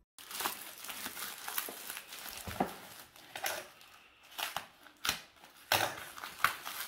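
Plastic parcel wrapping crinkling, scraping and tearing as it is cut and pulled open with a box cutter, with several sharp clicks among the irregular rustles.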